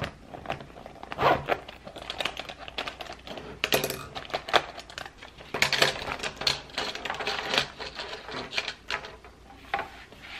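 Pens and markers clicking and clattering as they are taken out of a clear plastic zip pencil pouch and set down one by one on a tabletop, with the pouch rustling.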